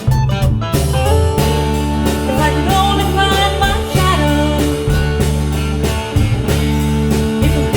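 Rock band playing an instrumental break: electric guitar over bass and drums with a steady beat.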